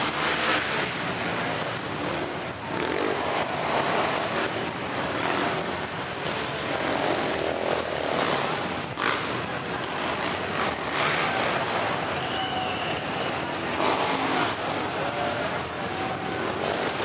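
Several three-wheeler ATC engines racing together, revving up and down as the riders work the jumps.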